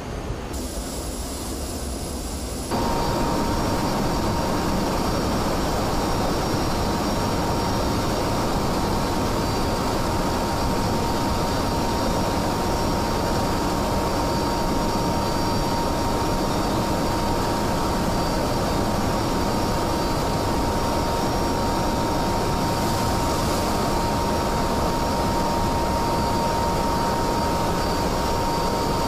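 Jet aircraft engine running steadily: a constant rushing noise with a steady high whine. It jumps louder about three seconds in.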